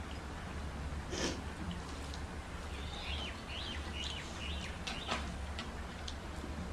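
Eating by hand: fingers mixing rice and curry on steel plates, with chewing, lip smacks and a few sharp clicks, over a steady low hum. A small bird chirps several times in the background from about three to five seconds in.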